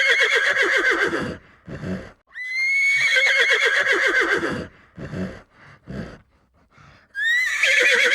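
Horse whinnying over and over, each whinny a long shaky call that jumps up in pitch and then falls away, with short quieter sounds in the gaps. A new whinny begins near the end.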